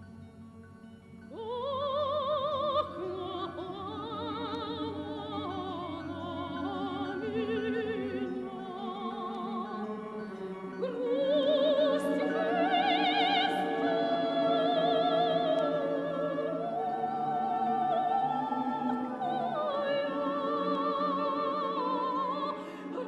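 Background music: operatic singing with a wide vibrato over a sustained orchestral accompaniment.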